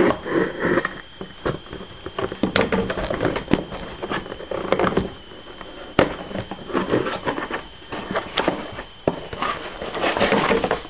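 Handling noise close to the microphone: irregular clicks, knocks and rustling as objects are picked up and moved about.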